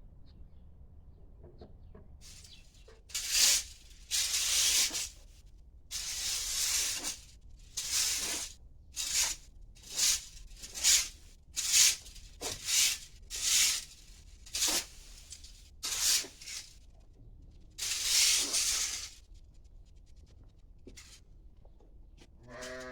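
About a dozen rough scraping strokes, irregularly spaced, each lasting up to about a second. They start about three seconds in and stop near the end.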